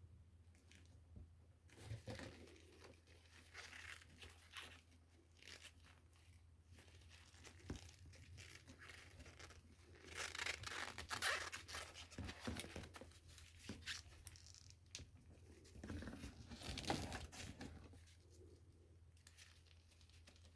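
Faint, irregular rustling, scraping and crinkling of hands handling parts, louder in two stretches partway through, over a steady low hum.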